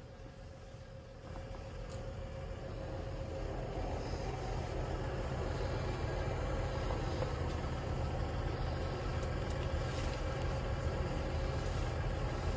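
Diesel semi-truck engine running at idle, a steady low rumble that grows louder over the first few seconds and then holds steady.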